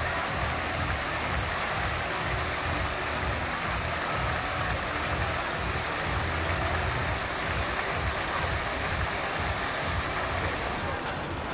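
Water fountain jet falling back into its pool, a steady splashing rush of water.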